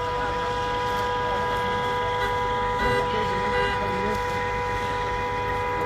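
A vehicle running at a constant speed: a steady drone of several held pitches over a low rumble.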